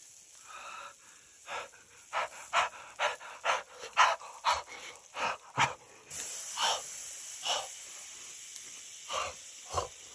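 A person huffing short, quick breaths in and out through an open mouth, about two a second, then slower, spaced puffs near the end: cooling a mouthful of piping-hot grilled scallop.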